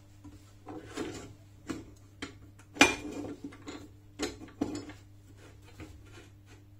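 Metal clanking and knocking: a run of irregular sharp metallic clinks and knocks, the loudest about three seconds in, over a faint steady hum.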